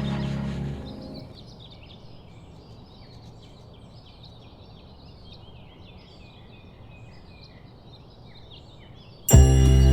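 A saxophone music track fades out in the first second. Then come faint birds chirping, many short calls over a low steady hiss of background ambience. Loud music starts abruptly near the end.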